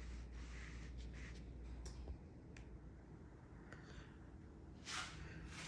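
Quiet room with a low hum that stops about two seconds in. A few faint clicks and a short rustle come near the end.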